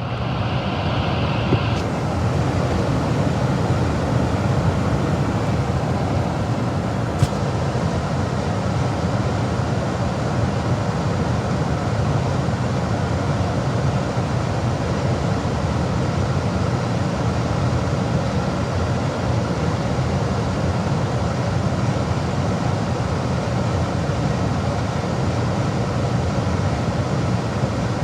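Gas furnace running: a steady, loud rushing roar of air and flame that comes up at the start, with a single sharp click about seven seconds in.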